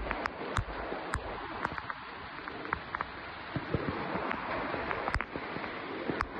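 Hailstorm with heavy rain: a steady hiss of downpour with scattered sharp clicks of hailstones striking hard surfaces, irregular, about two a second.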